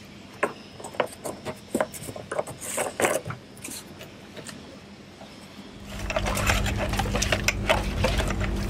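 Light, irregular plastic clicks and knocks as the screw cap of a red plastic jerrycan is turned shut. About six seconds in, a louder steady low hum with a rush of noise takes over.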